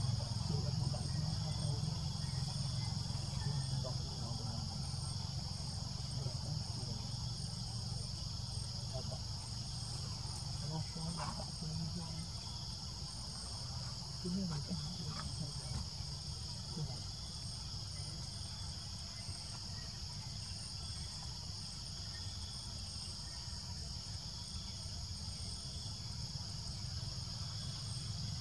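Steady chorus of insects: a shrill buzz held in several high bands, the highest of them pulsing, over a low rumble.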